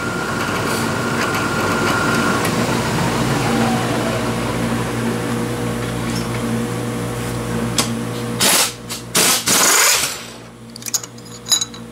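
Milling machine running with a steady hum, then switched off about ten seconds in, after a few louder surges of noise, so that it goes much quieter. A few light clicks of metal being handled follow.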